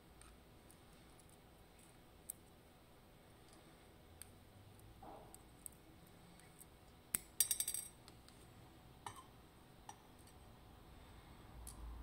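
Faint small metallic clicks and ticks of steel tweezers working inside the plug of a Ruko 500 pin-tumbler cylinder as its pins are taken out. About seven seconds in comes a brief rattle of clinks, the loudest sound.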